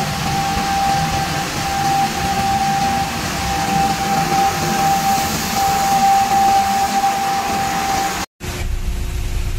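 Isuzu Giga mechanical broom sweeper truck working in cleaning mode: a steady hiss from its spinning side brushes and water spray on concrete, over the running engine, with a steady high whine. The sound cuts off abruptly near the end, and a lower rumble follows.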